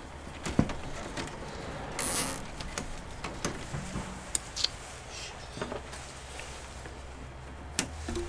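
Power cables being handled and routed in the back of a PC case: scattered light clicks and taps of cable connectors and plastic, with a short rustling burst about two seconds in.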